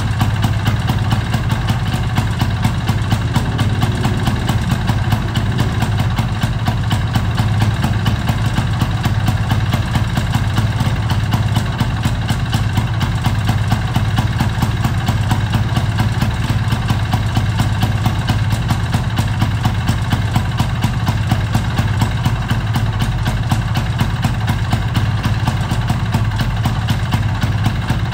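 Vespa PTS scooter's two-stroke single-cylinder engine idling steadily at an even rhythm, with no revving.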